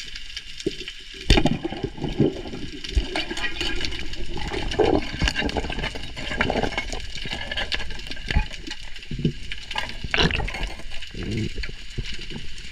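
Underwater water noise picked up by a diver's camera: water rushing and gurgling against the mic as the freediver swims, with a sharp knock about a second in.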